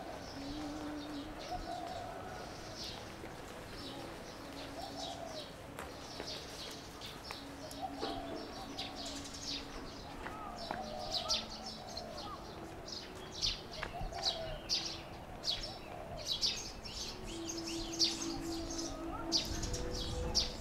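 Small birds chirping in many short, high notes that grow busier in the second half.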